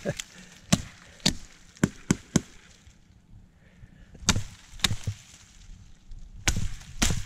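Kukri machete blade chopping branches off a piece of wood: a run of sharp strikes, a pause of about two seconds, then more strikes with a quick cluster near the end.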